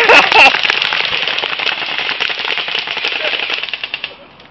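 Several airsoft guns firing rapid streams of BBs at a melon, a dense crackle of shots and pellet hits that stops about four seconds in.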